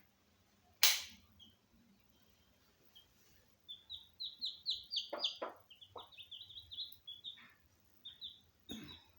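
Chicks peeping in a fast run of short, high, downward-sliding cheeps from a few seconds in, with a few low clucks from the mother hen among them. A single sharp click sounds about a second in.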